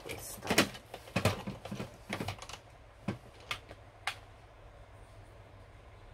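Light clicks and knocks of plastic makeup packaging being handled, irregular, several in the first four seconds, then only faint steady background noise.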